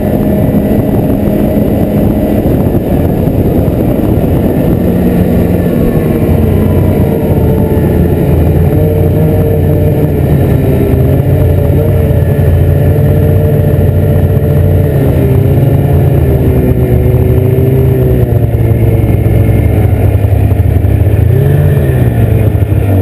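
Ski-Doo snowmobile engine running under way, its pitch holding fairly steady with small rises and dips, and a short rev up and down near the end.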